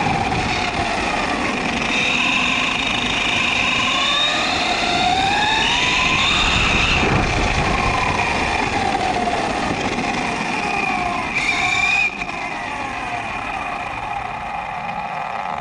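Kyosho Mad Van RC monster van's 2S brushless motor and four-wheel-drive gearing whining, rising and falling in pitch as it speeds up and slows, over a steady high whine and the rumble of its tyres on gravel, heard from on board. It gets quieter about twelve seconds in.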